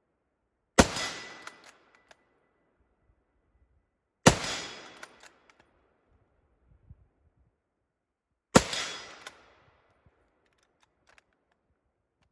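Three rifle shots from a Swedish Mauser M96 bolt-action rifle in 6.5x55mm, about four seconds apart, each a sharp crack followed by about a second of echo. Faint clicks of the bolt being worked come between the shots.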